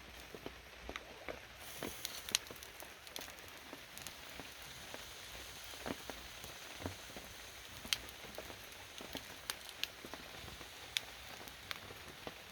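Wood campfire crackling: a steady hiss with frequent sharp, irregular pops and snaps.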